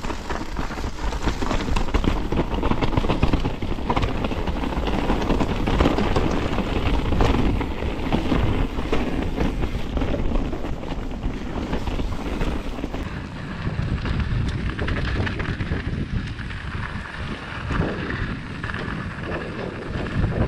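Mountain bike descending a rocky forest trail at speed: knobbly tyres rolling and crunching over stones and dirt, with the bike rattling and clattering over the bumps. Wind buffets the action-camera microphone with a constant low rumble.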